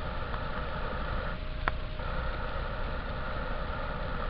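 A person blowing long, steady breaths onto hot coals to fan them hotter, breaking off about one and a half seconds in to take a breath, with a single sharp crackle in the pause.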